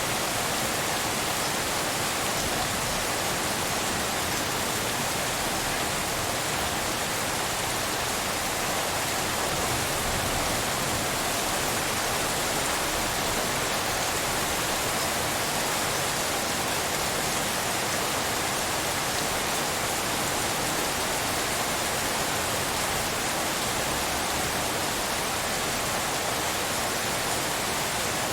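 Steady, even hiss of rain presented as pink noise, with no single drops or thunder standing out.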